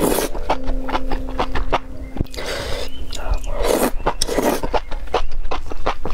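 Close-up eating sounds: wet chewing and lip-smacking clicks throughout, with a few short slurps of enoki mushrooms and chili broth around the middle.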